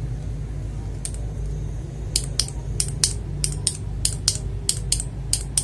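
Keys of a mechanical keyboard fitted with Gateron switches being typed on in a quick run of sharp clacks, about four a second, over a low steady hum.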